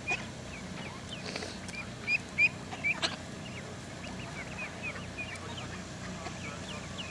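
A flock of ducks calling: many short, high chirping peeps, a few louder ones about two to three seconds in.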